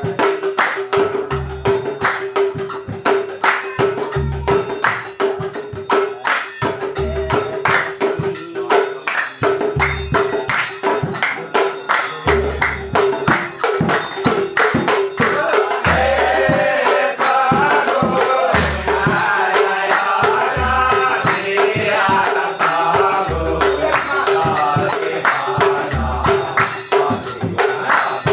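Nagara naam, Assamese devotional group music: large nagara drums struck with deep beats about every one and a half to two seconds under a fast rattling rhythm of small hand percussion and hand claps, with a steady tone behind. A group of men's voices starts singing the naam about halfway through.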